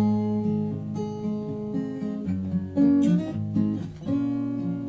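Acoustic guitar strumming chords between sung lines of a song, with strums about three seconds in and again near the end.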